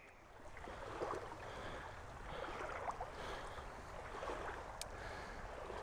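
Wading boots sloshing through shallow creek water, a swish of water roughly every second.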